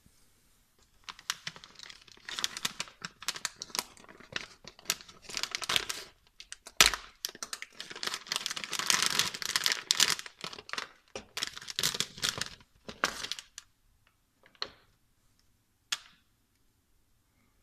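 Clear plastic packaging bag being torn open and crinkled by hand, with one sharp, loud rip a little before halfway. Near the end, two short clicks as the plastic mount is handled.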